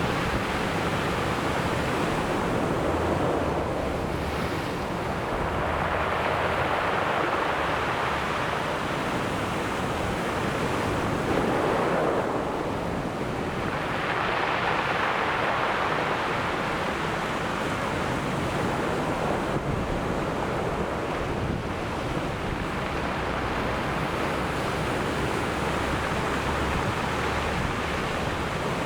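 Sea surf breaking and washing up the shore, the noise of the waves swelling and ebbing in slow surges several seconds apart.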